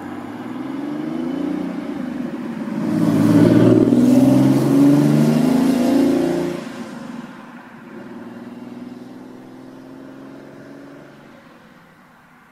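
Passenger coaches of a steam-hauled train rolling past on the rails, then fading away as the end of the train recedes. From about three to six and a half seconds in, a louder passing sound with pitch that bends up and down rises over it.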